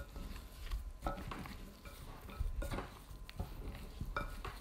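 A hand kneading chunks of goat meat coated in flour, spices and olive oil in a glass bowl: irregular soft handling noises with knocks against the glass.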